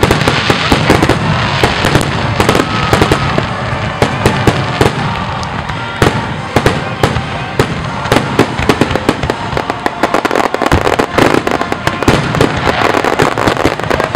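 Fireworks display: shells bursting in a dense, irregular barrage of bangs and crackles, several reports a second, over a continuous rumble of launches and crackling stars.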